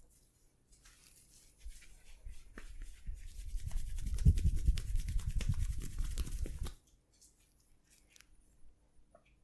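Hands working fast and rhythmically in a massage: a scratchy rubbing with soft thuds that builds up over the first few seconds and stops abruptly about two-thirds of the way through.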